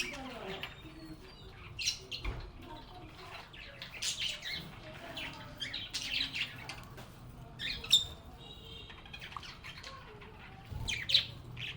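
Lovebirds chirping and squawking in short, sharp bursts, several birds calling on and off, with the loudest squawks at intervals of about two seconds.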